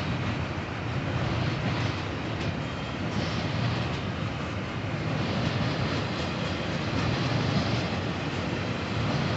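Intermodal freight train's container cars rolling past, a steady low noise of steel wheels on the rails.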